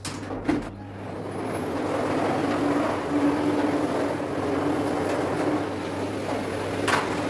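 An electric household appliance switched on with a click and spinning up over about two seconds to a steady, noisy running hum with a steady whine in it; another click comes near the end.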